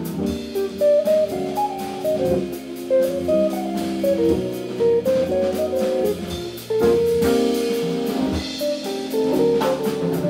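Live jazz from an organ trio: electric guitar and organ playing over a drum kit keeping a steady cymbal beat.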